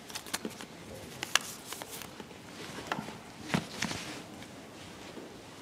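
Scattered soft clicks, taps and rustles of papers and a book being handled and gathered up on a lectern.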